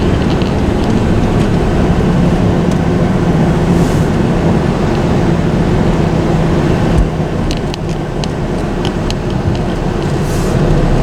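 Car engine running steadily under road and tyre noise, heard from inside a moving car's cabin. A run of short light clicks comes about seven to nine seconds in.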